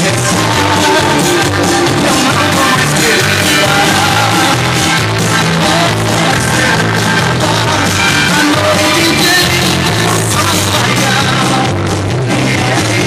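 A sertanejo song with singing, played loud through a car sound system, with a heavy bass line.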